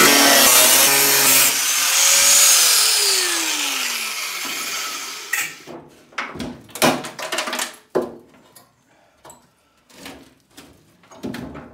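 Angle grinder with a cut-off wheel cutting into the sheet-steel inner panel of a tailgate for about a second and a half. It is then released and winds down with a falling whine. Scattered knocks and scrapes of metal follow as the cut-out handle is worked loose by hand.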